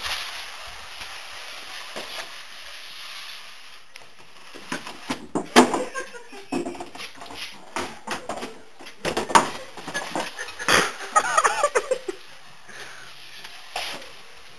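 Cardboard shoebox sliding and scraping across a hard floor, then a run of knocks and bumps as it jolts along, with people laughing near the end.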